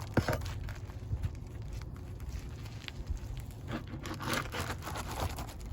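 Asphalt roof shingles being pried and worked loose with a hand tool to get at their nails: crackling scrapes and knocks, with a sharp knock just after the start and a longer rasping scrape about four seconds in.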